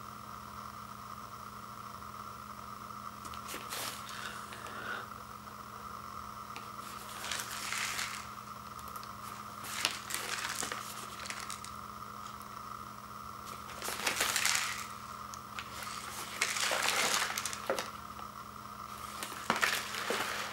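Plastic shrink wrap around a three-pack of ramen cups crinkling in about six short bursts as the pack is handled and turned over, over a steady faint hum.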